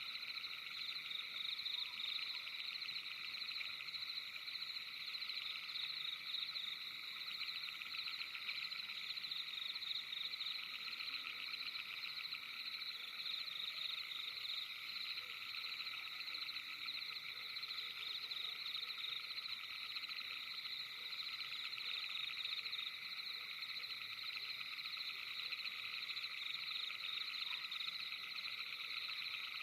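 Steady night-time chorus of many frogs calling at once, a dense, rapidly pulsing sound in several high pitch bands that runs without a break.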